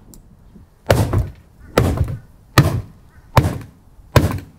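A wooden-handled club hammer striking the top of a hand-made jet ski storage pod prototype: five heavy blows, about one every 0.8 s, each with a short dull ring. It is an impact strength test, and the pod holds up.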